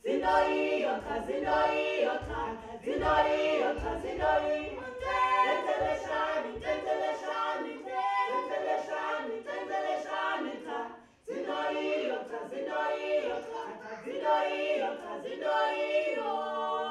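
A small group of voices singing a cappella in short rhythmic phrases, breaking off briefly about eight and eleven seconds in, with some low thuds under the first half.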